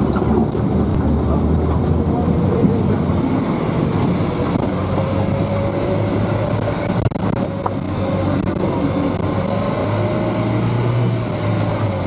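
UAZ off-road vehicle's engine running as it drives along a rough track, with a whine that slowly rises and falls in pitch and a few knocks and rattles about seven seconds in.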